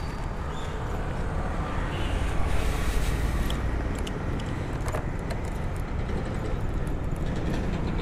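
Steady low rumble of passing road traffic, with a few light clicks about halfway through.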